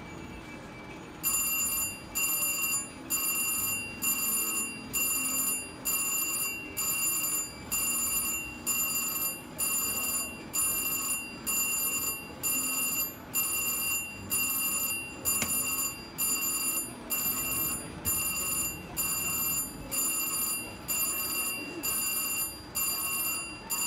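Electronic win bell of a VGT Mr. Money Bags slot machine ringing in a steady repeating pattern, about one ring a second, signalling a paid win.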